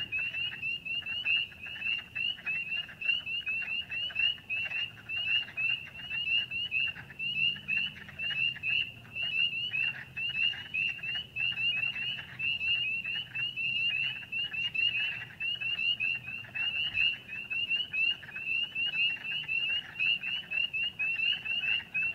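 A chorus of frogs: many short, high, rising peeps overlapping several times a second without a break.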